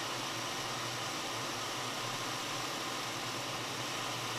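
Steady rushing hiss of blowing air with a constant low hum, from soldering-bench rework equipment running while a chip on a laptop logic board is reworked.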